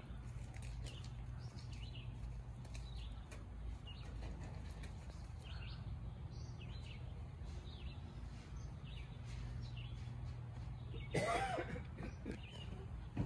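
Songbirds chirping in short, scattered calls over a steady low rumble, with one brief louder sound near the end.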